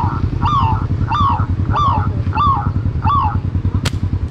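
A bird call, a short falling note repeated about twice a second, over a small engine running steadily underneath. A single sharp click near the end.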